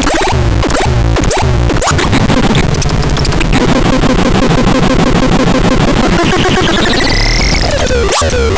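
Loud, dense electronic noise music: choppy stuttering pulses at first, then a thick buzzing wall of sound with a tone that sweeps up and back down about seven seconds in.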